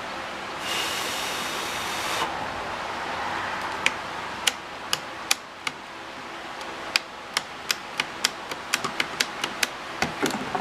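Solder joint popping and spitting under a soldering iron. A hiss of about a second and a half comes about a second in, then a run of sharp pops that come faster and closer together near the end.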